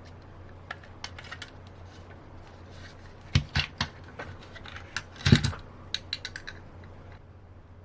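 Light clicks and taps of small plastic parts being handled, with a few louder knocks about three and a half and five seconds in and a quick run of small ticks near six seconds, as a brushed electronic speed control is fitted onto the plastic chassis of a radio-controlled trike. A steady low hum runs underneath.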